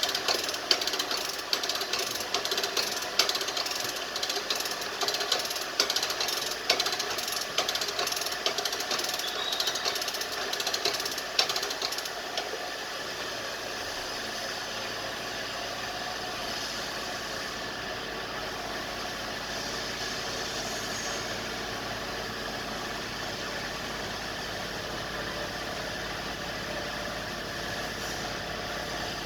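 Rapid, irregular mechanical rattling and knocking for about twelve seconds, which then gives way to a steady machine hum, like an engine running.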